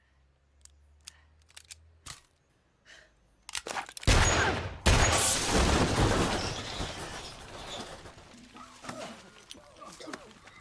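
A few faint single gunshots, then a large explosion about four seconds in with a second blast close after it. Crashing debris and crackle follow and slowly die away, with a few small knocks of settling rubble near the end.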